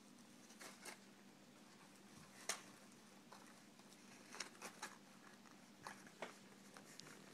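Netherland dwarf rabbits nibbling: a scattering of faint, sharp crunches and clicks in a quiet room, the loudest about two and a half seconds in, with a small cluster a little past four seconds.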